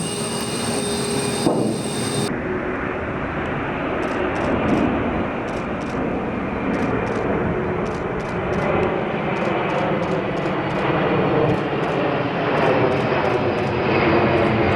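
Turbofan engines of an Antonov heavy cargo jet running, a steady loud jet noise with a faint low hum in it. The sound changes character about two seconds in.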